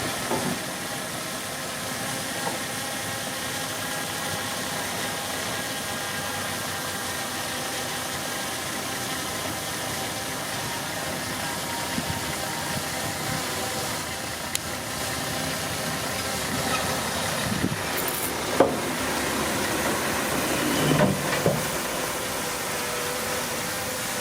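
Bulldozer's diesel engine running steadily, with a constant drone and whine, joined by a few sharp metallic knocks and clanks near the end.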